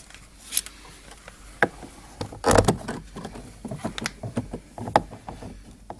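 Small clicks and knocks of hand tools and metal parts being handled, with a louder clatter about two and a half seconds in, as a T30 Torx bit is fitted and Torx screws are started by hand.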